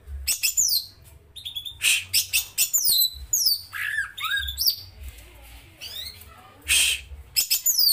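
Caged cucak ijo (green leafbird) singing its rolling song: quick runs of high, sharply falling whistles mixed with harsh, scratchy calls, the loudest bursts about two seconds in and again near the end.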